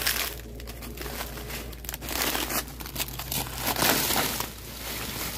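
Dry banana leaves and leaf litter crackling and rustling as they are pushed aside, heavier from about two seconds in.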